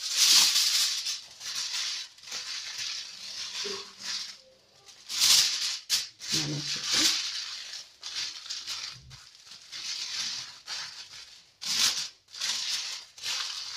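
Aluminium foil crinkling and rustling in irregular bursts as it is folded and pressed by hand around a wrapped piece of meat.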